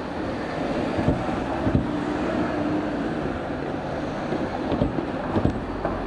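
Shin-Keisei 8000-series electric train running away around a curve, a steady rumble with a few wheel knocks at rail joints, mixed with wind noise on the microphone.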